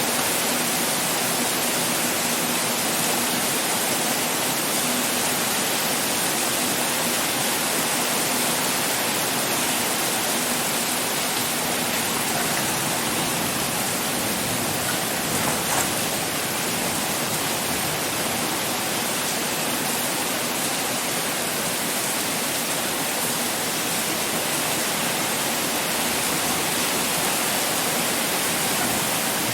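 Heavy rain pouring steadily, a dense even hiss of falling water with no let-up.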